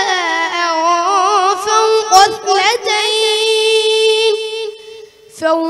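A boy reciting the Quran in melodic tajweed style, drawing out and ornamenting long vowels with wavering pitch. The held note fades near the end, and after a brief breath the recitation resumes.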